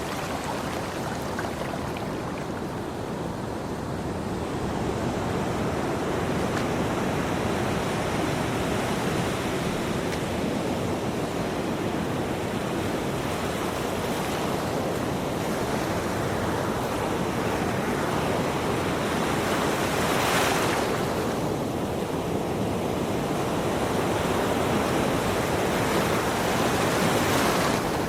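Ocean waves breaking on a shore, a continuous surf wash that swells and ebbs, with a louder, hissier breaker about two-thirds of the way through and another near the end.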